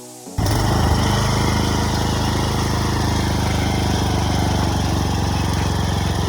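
Blitz 120 two-wheel walk-behind tractor's engine running steadily under load, pulling a root plow to dig potatoes. It cuts in abruptly about half a second in, right after a short tail of music.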